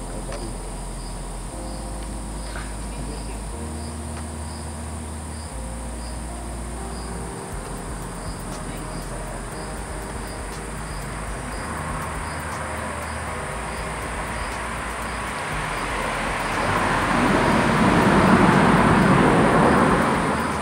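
Insects, crickets, chirping in an even repeating pulse over a steady high buzz. In the second half a rushing noise swells up, is loudest near the end, then falls away.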